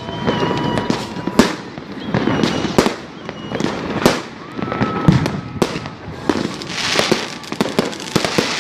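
New Year's fireworks going off: many sharp bangs at irregular intervals, with a few long whistles and a burst of fizzing crackle about seven seconds in.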